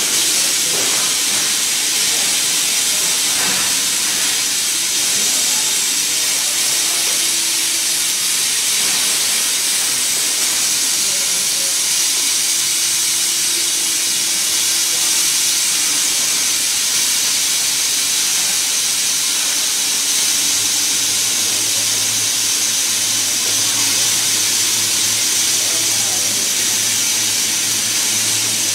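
Laser cutting machine cutting metal plate: a steady, loud hiss of the assist-gas jet blasting through the cutting nozzle into the kerf. A faint low hum joins about two-thirds of the way through.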